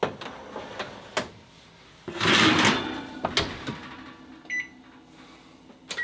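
Kitchen oven being shut after a baking pan is taken out: a loud metal clatter of the oven rack and door closing about two seconds in, among a few smaller knocks. About four and a half seconds in comes a short electronic beep from the oven's control panel, with another brief beep at the very end.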